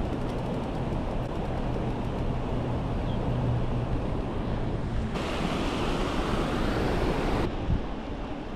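Steady rushing of wind and rain in a storm, with a low drone underneath. A brighter hiss cuts in abruptly about five seconds in and cuts out again a couple of seconds later.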